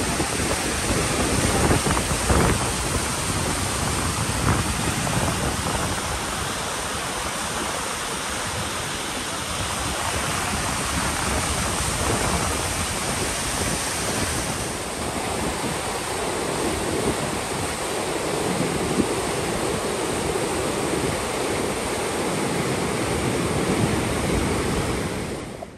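Loud, steady rush of a fast, churning, silt-laden glacial river, with some wind on the microphone.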